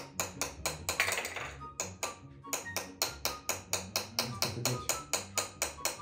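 Background music with a fast, even beat of about five strokes a second over steady low notes, with a short noisy rush about a second in.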